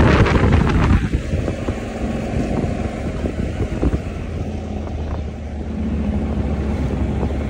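Motorcycle engine running at low road speed, with wind noise on the microphone; louder for the first second, then steady.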